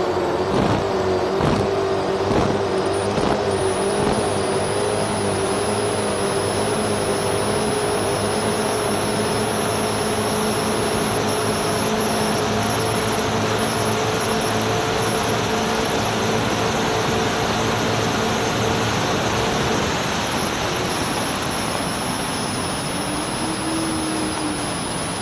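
Twin supercharged big-block V8 engines of an offshore powerboat running at high speed, a steady high engine note under heavy wind and water rush. About twenty seconds in, the main engine tone fades and the sound gets a little quieter.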